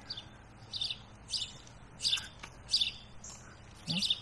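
A bird chirping over and over, short high notes about every 0.7 seconds.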